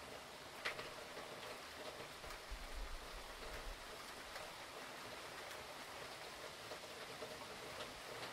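Rain falling steadily, with scattered ticks of drops striking a surface and a brief low rumble about two and a half seconds in.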